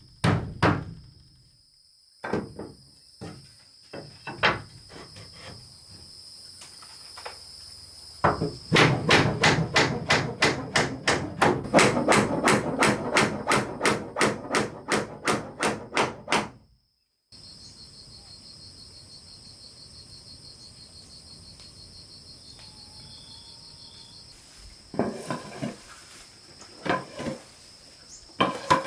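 Hammer striking a wooden door frame: a few scattered blows at first, then a fast, even run of loud strikes about three a second for some eight seconds. Insects chirp steadily behind it and are heard alone for several seconds after the hammering stops, before a few wooden knocks near the end.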